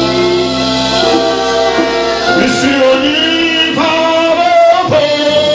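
Live gospel music: a man singing into a microphone, holding long notes, over a band with drums.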